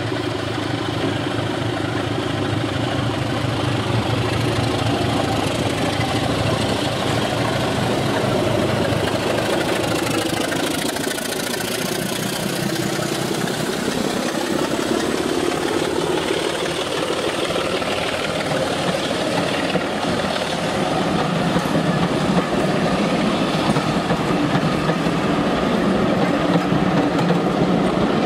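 BR Class 24 diesel locomotive running as it approaches and passes, its engine note bending down in pitch as it goes by, followed by the coaches it hauls rolling past.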